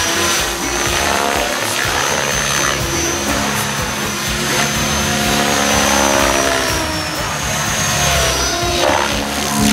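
Electric Mikado Logo 700 Xxtreme RC helicopter in 3D aerobatic flight: the main rotor buzzes and whooshes with a pitch that sweeps up and down as it flips and turns, over a steady high motor whine.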